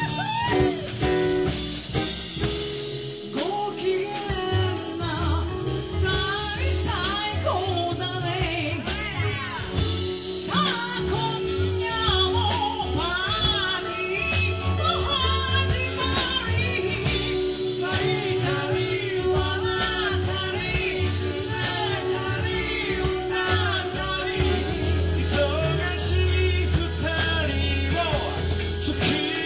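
A live soul band playing a song, with drums, bass, guitars, keyboard and saxophone, and singing over the band.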